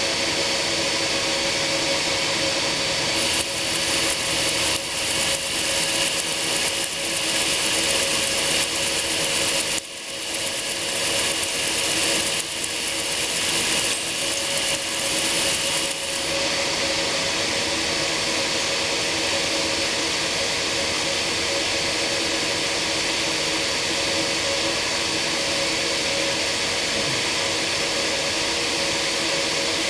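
Homemade belt sander running steadily at low speed, its motor giving a constant hum with a steady whine. From about 3 to 16 seconds in, a rougher, hissing grind is added as the extrusion screw is polished against the belt, with a short break about 10 seconds in.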